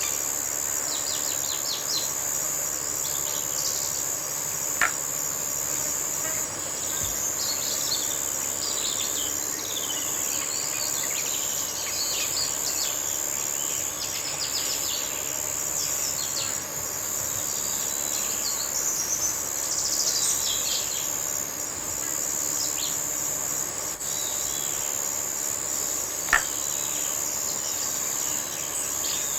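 Jungle ambience: a continuous high-pitched insect drone with many bird calls and chirps over it throughout. Two short sharp clicks, one about five seconds in and one near the end.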